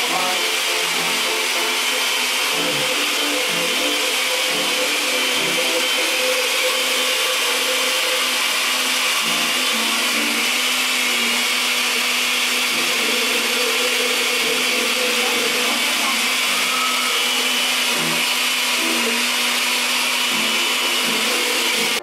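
A small motor-driven machine running steadily, a constant whirring hiss over a low hum.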